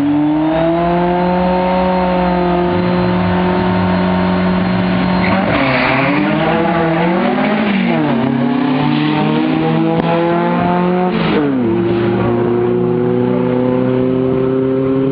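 Engines of a VW Beetle buggy and an Opel revving hard on a drag-strip start line, the pitch rising and falling repeatedly, with a short tyre squeal about six seconds in. About eleven seconds in, the notes change to a steadier, slowly rising pitch as the cars pull away.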